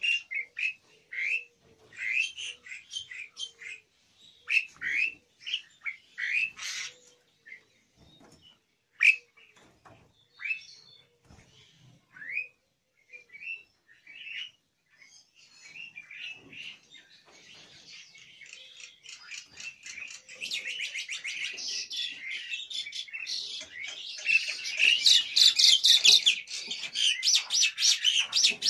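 Caged starlings (Javan pied and black-winged starlings) calling: short sharp chirps and whistles a second or so apart. About halfway through, these give way to a dense, rapid chattering that grows loudest near the end and then stops suddenly.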